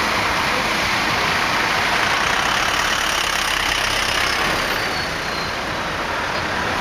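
Steady street-traffic noise heard from inside a car in slow town traffic, engine and road noise together, with a box truck passing close alongside.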